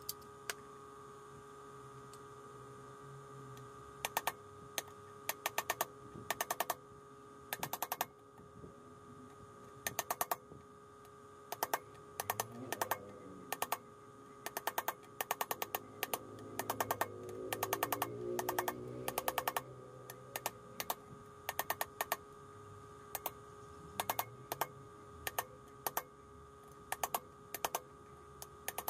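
Ratchet wrench clicking in short bursts of several quick, even clicks every second or two, over a steady faint hum.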